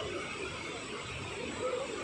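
Indistinct chatter of a crowd of tourists over a steady rushing background noise.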